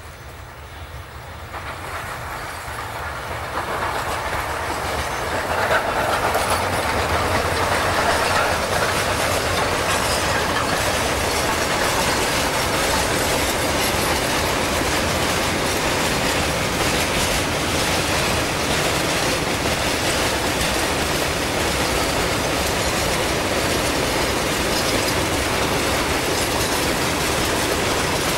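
Freight train behind a QJ class 2-10-2 steam locomotive drawing closer and getting louder over the first six seconds, then a steady noise of the train's wheels and wagons running past.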